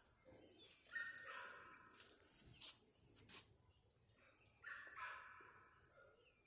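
Faint animal calls, each about a second long, heard three times.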